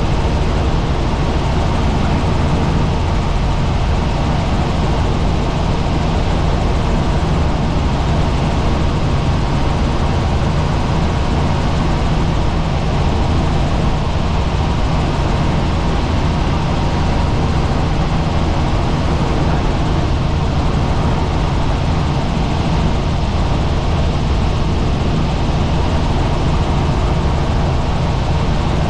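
Helicopter in steady flight: a loud, even drone of rotor and engine, strongest in the deep low end.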